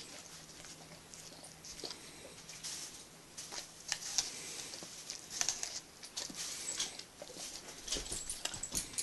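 German shepherd nibbling small bites from a whole apple held between its paws: irregular, crisp crunching in short clusters of quick bites.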